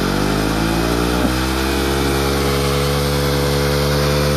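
Motorcycle engine running steadily at idle, its pitch rising a little in the first second before holding even.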